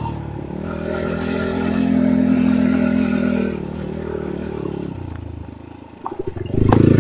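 Enduro motorcycle engine under way, pulling steadily, then easing off past halfway to a slow putter with separate firing pulses, before the throttle opens and it revs up loudly near the end.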